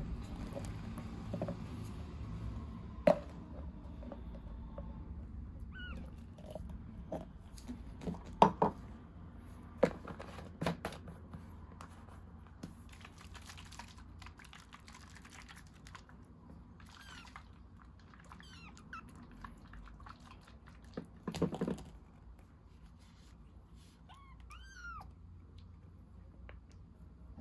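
Baby kitten suckling milk from a feeding bottle, with small wet chewing and sucking noises, a few thin high mews, and several sharp knocks.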